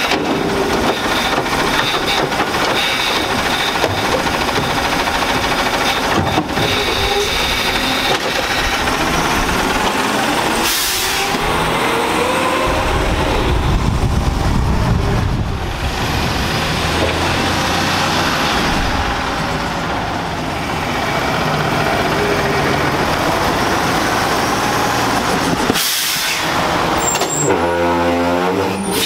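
Autocar garbage truck with a New Way automated side-loader running through a cart pickup: the diesel engine runs steadily with hydraulics working the arm, and the truck rumbles loudly as it pulls past. Two short air-brake hisses sound, about 11 s and 26 s in.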